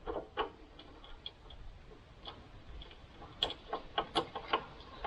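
Light, irregular clicks and taps of small metal hardware being handled as a washer and nut are fitted by hand. The clicks come a little quicker, about three a second, partway through.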